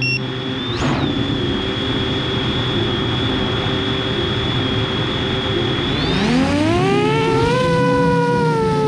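Motors of a 7-inch FPV quadcopter, a GEPRC Crocodile 7, spinning at idle on the ground with a steady high whine and prop rush. About six seconds in they spool up as it lifts off, and the whine rises in pitch and stays high.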